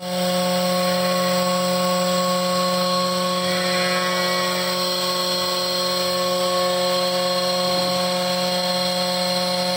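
Electric vacuum pump of a single-can milking machine running steadily: an even motor hum with several constant higher tones above it.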